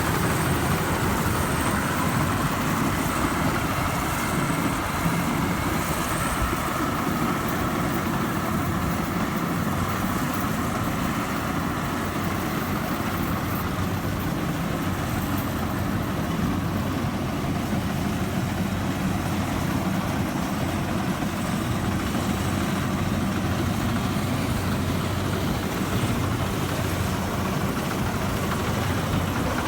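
Rice combine harvester's diesel engine running steadily during harvesting, with a higher machinery whine over it that fades after about ten seconds.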